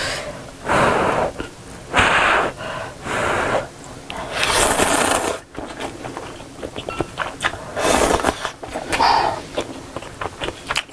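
Ramen noodles slurped up from a bowl in several long, noisy slurps, then chewed with small wet clicks near the end.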